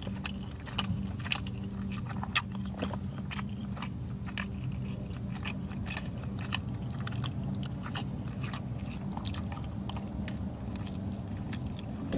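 A person chewing a mouthful of soft roast beef and cheese slider with the mouth close to the microphone: irregular wet clicks and smacks, over a steady low hum.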